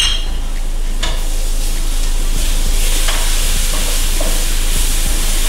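Butter sizzling as it melts in a hot pot of sautéing shallots and garlic, a steady frying hiss, with a single sharp knock about a second in.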